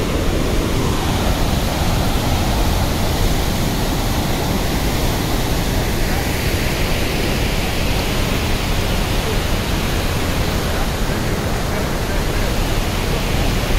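Loud, steady rushing of floodwater pouring through a dam's opened spillway gates.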